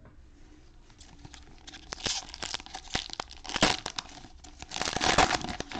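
Cellophane wrapper of a Panini Mosaic football cello pack being torn open: crinkling and tearing that starts about two seconds in and is loudest near the middle and again near the end.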